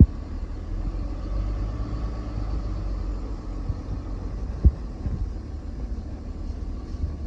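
Steady low rumble of a vehicle idling, with a short thump right at the start and another about four and a half seconds in.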